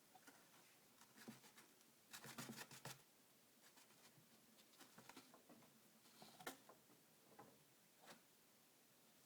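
Faint scratchy rustling and scrabbling of a chinchilla digging and rolling in dust-bath dust, in uneven bursts, with a dense flurry about two seconds in and a sharp click later.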